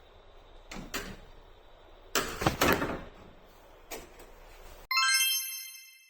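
Clicks and knocks of tools and metal parts being handled during an adjustment on a pillow-type packaging machine, the loudest cluster about two seconds in. Near the end the background cuts off and a bright bell-like chime rings and fades.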